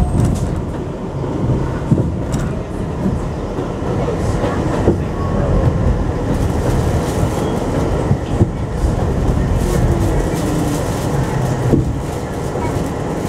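New York City Subway 7 train running on the elevated Flushing Line, heard from inside the rear car. A steady rumble of steel wheels on rail is broken by irregular clicks and knocks over rail joints, with a faint squeal now and then.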